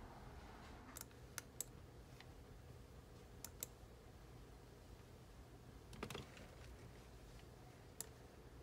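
Faint, scattered clicks of a computer mouse or keys, about eight in all with gaps between them, over a low steady hum; one about six seconds in is a little louder.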